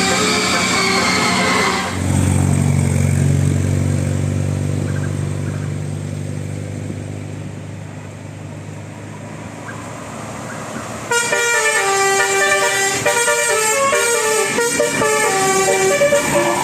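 Bus telolet horn, a multi-trumpet musical horn: a held chord at the start, then a low steady hum that slowly fades, then from about two-thirds of the way in a quick tune of changing notes.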